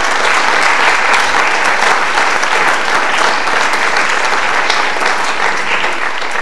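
Audience applauding: a dense run of many hands clapping at once that thins out near the end.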